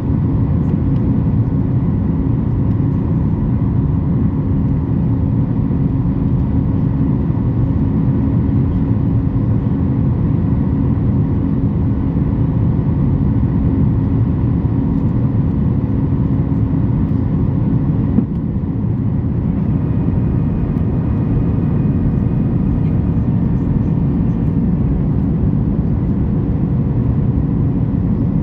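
Steady cabin noise of a Boeing 737 MAX 8 in flight on approach: the hum of its CFM LEAP-1B engines and airflow, with a few steady tones over a deep rumble. A brief click about 18 seconds in, after which the noise is slightly quieter.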